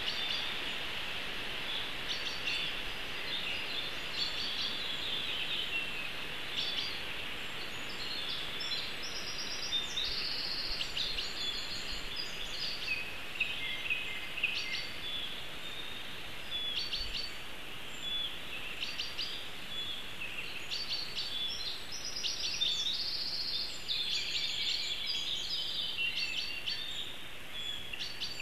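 Forest ambience: small songbirds singing and chirping in quick repeated phrases over a steady background hiss, with the singing busiest around ten seconds and again around twenty-three seconds in.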